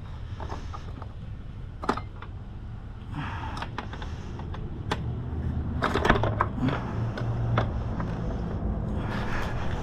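Scattered metallic clicks and knocks as motorcycle rear-wheel parts and chain are handled during wheel removal, with a cluster of louder clinks about six seconds in.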